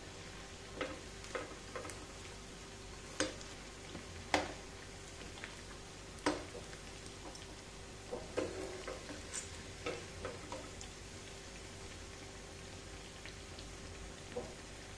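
Pakodas deep-frying in a kadai of hot oil, a steady soft sizzle, with sharp clinks of a metal slotted spoon against the pan at irregular moments as the fritters are turned and lifted out.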